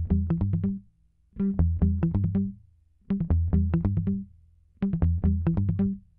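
Background music: short phrases of quick plucked notes over a low bass line, broken by brief pauses.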